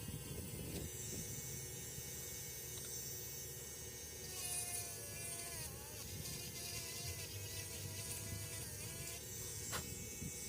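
A faint, steady electric buzz, like a small motor running.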